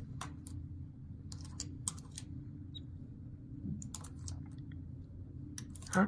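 Small plastic fiber optic connectors clicking and clattering on a wooden tabletop as a hand picks them up and sets them down. The light clicks come in scattered small clusters.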